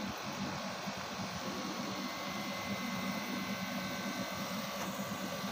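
Steady background hum under an even hiss, with a few faint high steady tones and no sudden sounds.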